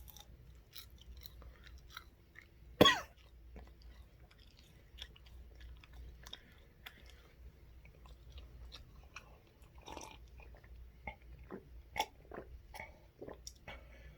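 A person chewing a Trinidad scorpion pepper, with irregular small mouth clicks and smacks throughout and one loud sharp sound about three seconds in.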